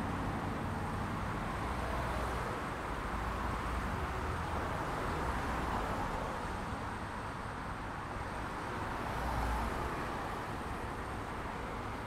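City road traffic: a steady wash of engine and tyre noise from cars passing by, swelling as vehicles go past, loudest about nine to ten seconds in.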